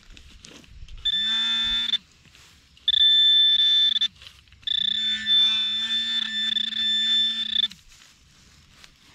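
Handheld metal-detecting pinpointer sounding its alert three times, about one second, one second, then three seconds: a high steady beep-tone over a low buzz that spins up at each start. It is signalling a metal target in the dug soil plug.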